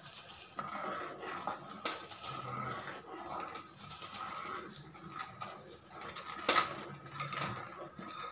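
Granulated sugar pouring into boiling milk in a steel pot, then a steel ladle stirring and knocking against the pot, with a sharp clink about six and a half seconds in.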